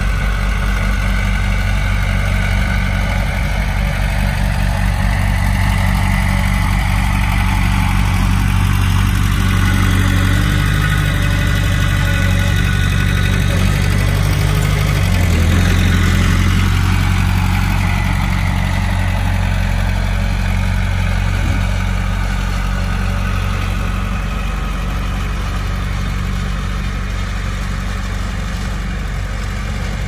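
Komatsu D20P bulldozer's diesel engine running steadily under work, growing louder to a peak about halfway through and easing off afterwards.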